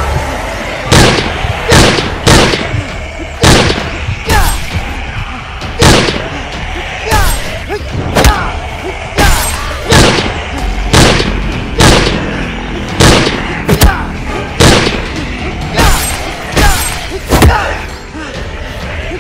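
A rapid series of loud, sharp impact hits, roughly one a second, over background music.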